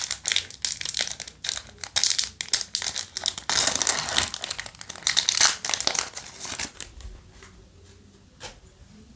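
Foil wrapper of a Yu-Gi-Oh! trading-card booster pack crinkling and tearing as it is ripped open by hand. There is dense, rapid crackling for about seven seconds, then it goes quiet except for a faint click or two.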